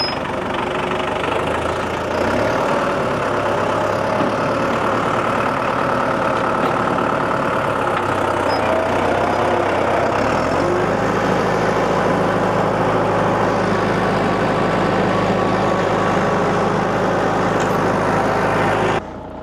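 John Deere 5520 tractor's diesel engine running as it pulls on a large oak log by a chain. About halfway through, the engine note changes and then holds steady. The sound cuts off abruptly just before the end.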